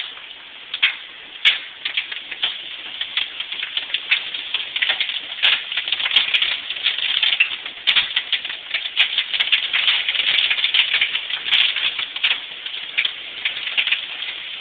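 Rain pattering hard: a dense, irregular spray of drops tapping on a surface, growing heavier about a third of the way in.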